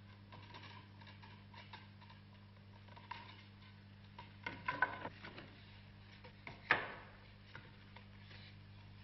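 Wooden boards handled and laid on a wooden table: scattered light knocks, a quick cluster of clacks just before the middle, and one louder wooden knock about two-thirds through, over a steady low hum.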